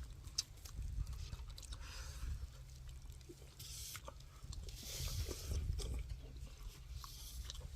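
Eating sounds close to the microphone: chewing, with scattered light clicks and a few short hissing bursts over a steady low rumble.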